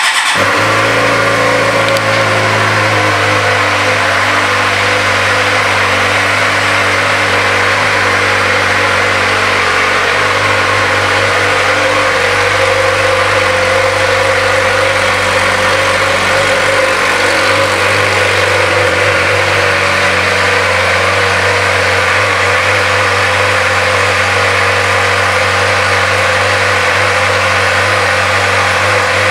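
2009 Suzuki GSX-R 600's inline-four engine, fitted with an aftermarket exhaust, catching suddenly at the start and settling within a couple of seconds into a steady idle.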